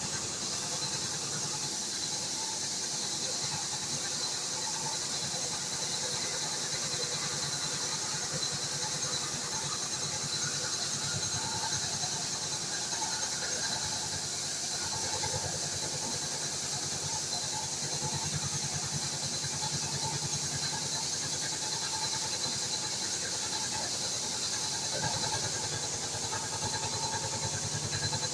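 HAAS CNC mill running a job on an aluminium GM 3900 LZ9 V6 cylinder head: a steady hiss with a thin, steady high tone over a low hum, and small tones rising and falling in the middle.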